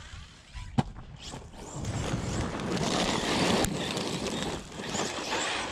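RC truck driving hard over loose gravel and dirt, its tyres spraying grit with a rough hiss that builds over the first two seconds and stays loud until near the end. There is a sharp click about a second in.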